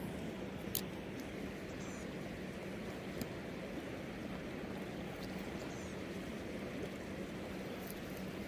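Steady rush of flowing creek water, with a faint low steady hum underneath and a few faint clicks.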